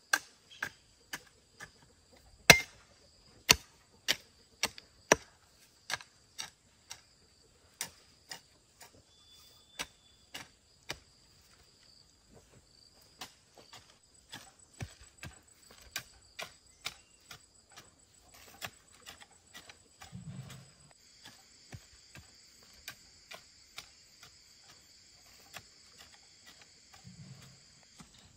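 A series of sharp, irregular knocks or taps, about one or two a second, louder in the first few seconds and fainter after, with a steady high-pitched whine behind them.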